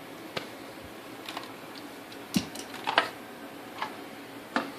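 Scattered light clicks and knocks of hard objects being handled, with two louder knocks about two and a half and three seconds in.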